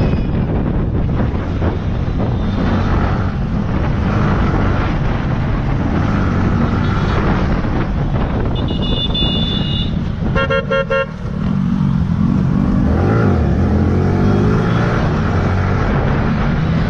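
Yamaha sport motorcycle engine running at road speed in traffic, heard from the rider's seat, its pitch rising and falling a few times in the second half. Vehicle horns honk: one held toot about eight and a half seconds in, then a quick string of short beeps about ten seconds in.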